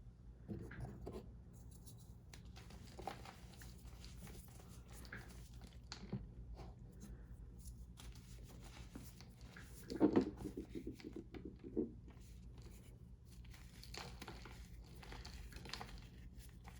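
A block of reformed gym chalk being crushed by hand, with crunching and crumbling throughout and the loudest burst of crunches about ten seconds in. The chalk is crunchy because it was not fully dried.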